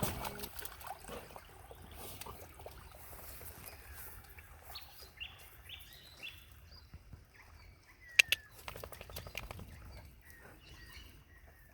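Birds chirping in short, high calls over faint outdoor background, with a couple of sharp clicks a little past the middle.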